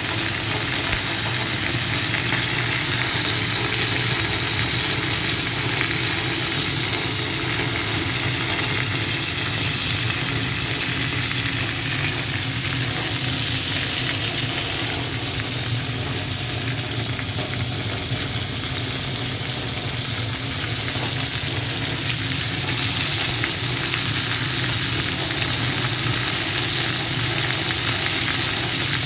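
Grouper steaks frying in shallow hot oil in a black pan, a steady sizzle throughout.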